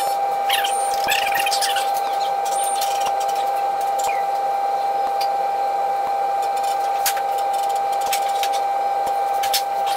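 Steady motor hum with a high whine that holds one pitch throughout, with a couple of light clicks near the end.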